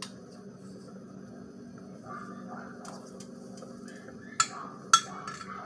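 A metal spoon stirring melting soap in a glass measuring cup, clinking sharply against the glass twice near the end, over a low steady hum.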